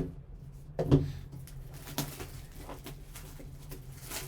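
Handling sounds from a sealed card box being picked up and turned over: a sharp knock about a second in, then scattered light taps and rustles over a steady low hum.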